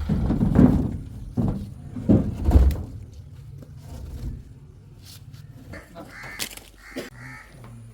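Several heavy low thuds in the first three seconds, then crows cawing a few times in short calls near the end.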